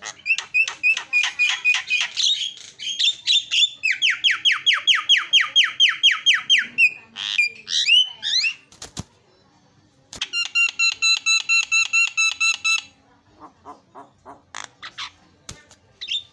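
Javan myna (jalak kebo) singing its mimicry-filled song: several fast runs of repeated whistled and squeaky notes, about six or seven a second, broken by a short pause about two-thirds of the way through and turning fainter near the end.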